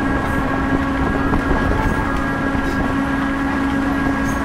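Moving train car rolling along the track, a steady rumble with a constant hum and a few faint clicks.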